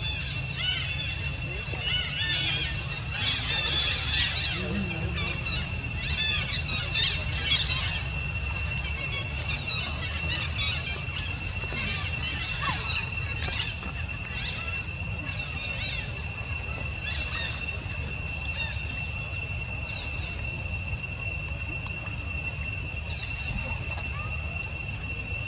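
Insects droning steadily on one high pitch, with many short high chirps or squeaks over them, thickest in the first eight seconds and sparser after. A low rumble runs underneath.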